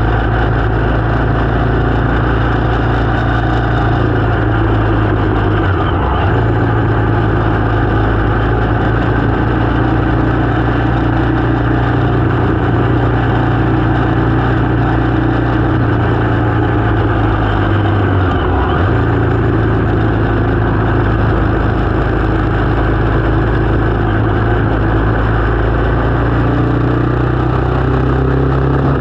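Motorcycle engine running steadily while riding, with a constant low engine tone that breaks briefly twice, about six seconds in and again past eighteen seconds.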